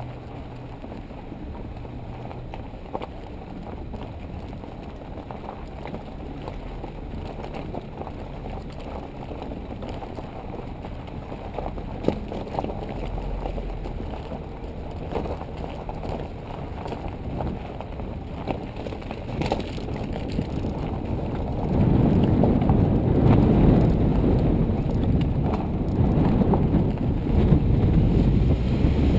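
Rough rumble and wind buffeting picked up by a camera mounted on a vehicle driving off-road over gravel, with scattered small knocks from stones. It gets louder and rougher about three quarters of the way through.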